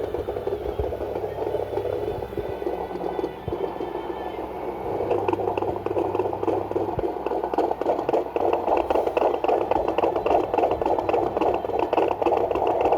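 Handheld fetal Doppler's speaker playing the whooshing, pulsing sound of puppy heartbeats inside a pregnant husky's belly. A fast, even beat rises out of the hiss about five seconds in.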